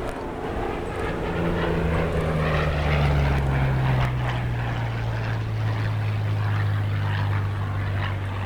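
A WWII propeller fighter's V-12 piston engine runs as the plane flies past. Its engine note drops in pitch as it goes by and is loudest about three to four seconds in.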